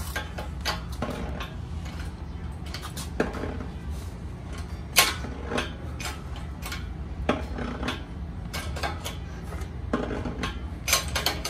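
Shop press forcing a Ford T18 transmission shaft the last of the way into its rear ball bearing, closing the gap until the bearing seats: irregular sharp metallic clicks and ticks, the loudest about halfway through, over a steady low hum.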